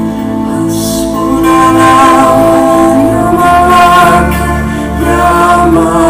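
Bansuri bamboo flute playing long, held, slightly wavering melody notes over acoustic guitar and a steady low drone, in live concert sound.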